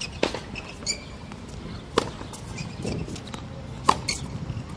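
Tennis rally: a ball struck by rackets about every two seconds, three sharp hits in all, with short squeaks of sneakers on the court between the shots.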